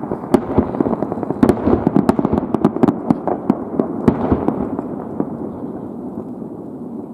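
Aerial fireworks bursting: a rapid run of sharp bangs and crackles over a low rolling rumble, which thins out after about four seconds and fades away.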